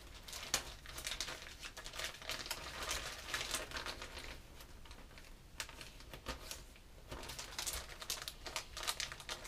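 Plastic lure packets and a clear zip-top storage bag crinkling in irregular bursts as they are handled and packed together.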